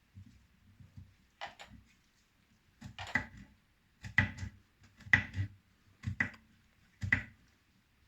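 Knife slicing zucchini into small pieces, each cut ending in a sharp knock on the board, about once a second.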